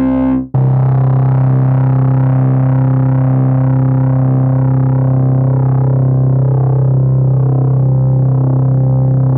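Software synthesizer patch holding a single low note, rich in harmonics, with a slow shimmering beat in its upper tones. The previous note cuts out about half a second in and the new note starts straight after.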